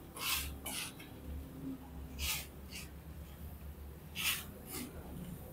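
Ribbon mixer's 400 W single-phase gear motor running under load with wet sand in the drum, a steady low hum. A few short hissing, breath-like sounds come and go over it.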